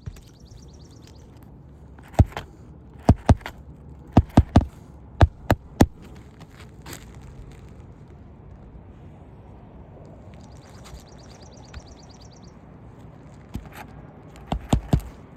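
Hammer blows driving roofing nails into a new asphalt shingle: sharp strikes in quick groups of two or three, a pause of several seconds, then another quick group near the end. A high, rapid chirring trill sounds twice in the background.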